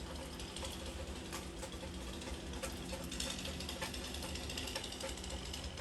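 Heavy rain falling and pattering with many small ticks, over the steady hum of a distant engine running.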